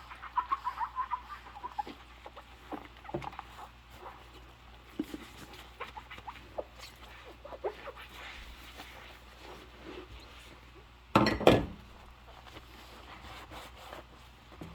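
Rubber gloves squeaking against wet dishes: a quick run of short high squeaks in the first two seconds, then scattered small clicks and scrapes, and one brief loud knock about eleven seconds in.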